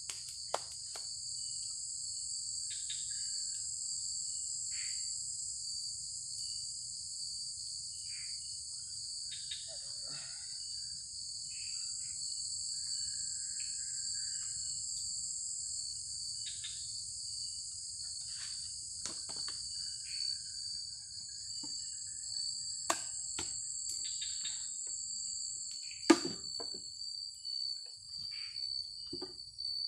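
Forest insects chirring in a steady, high-pitched drone. Sharp clicks or knocks come now and then in the last third, the loudest about 26 seconds in.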